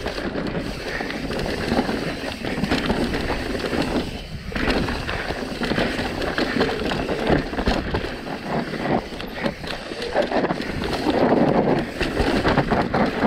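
Wind rushing over the microphone with a mountain bike rattling and clattering down a rough dirt trail at speed, knocks coming thick and irregular.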